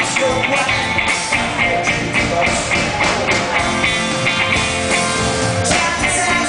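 Rock band playing live through a concert PA: electric guitars, bass and drums with a steady beat.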